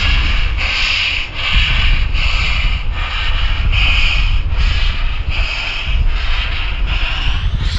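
Narrow-gauge saddle-tank steam locomotive working slowly, its exhaust chuffing evenly about once every three-quarters of a second, over a low rumble.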